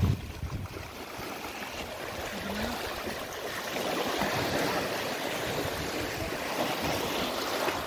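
Swollen river in flood washing and lapping against an earth bank: a steady rush of water that grows a little louder about halfway through.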